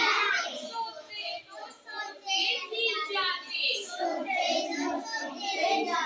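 Young children's voices chanting a rhyming Hindi poem together in a sing-song.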